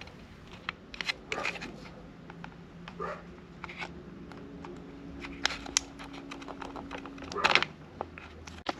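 A dog barking now and then, the loudest barks a little over a second in and near the end, mixed with small clicks and rattles of pliers and hands working inside a plastic foot-switch housing.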